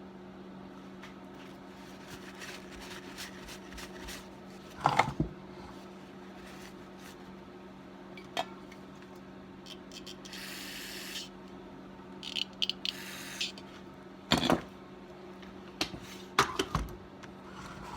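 Small tools and saw parts handled at a workbench: scattered light clicks and two louder knocks. Twice a short hiss of about a second, like a spray, over a steady low electrical hum.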